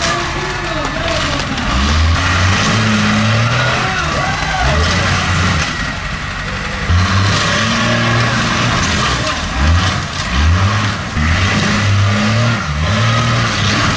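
A monster truck's big engine revving in repeated bursts, rising and falling in pitch as the truck climbs onto and crushes a row of junk cars.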